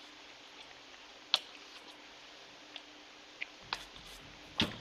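A handful of scattered light taps and clicks from a foam stamp and art supplies being handled on a desk, a sharper tap a little over a second in and another near the end.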